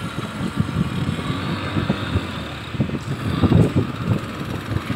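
Wind buffeting the microphone in uneven gusts over the steady running of a speedboat's outboard motors.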